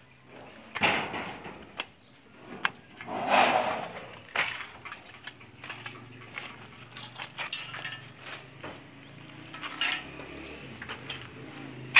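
Scattered clanks and knocks of construction work on a steel roof frame, two louder clatters about one and three and a half seconds in, over a low steady hum.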